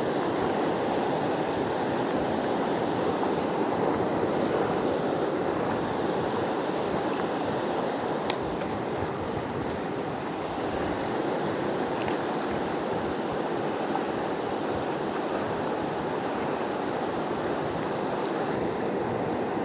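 Steady rushing of a fast-flowing river over shallows.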